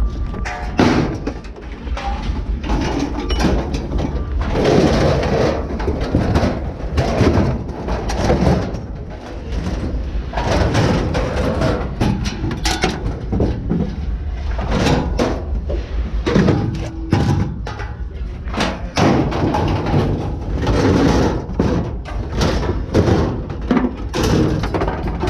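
Irregular clanks, bangs and rattles of scrap metal being handled, over a steady low engine rumble.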